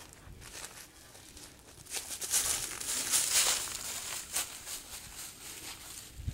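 Close rustling and crunching as a person walks right past, growing loud for a couple of seconds in the middle, with a few light knocks.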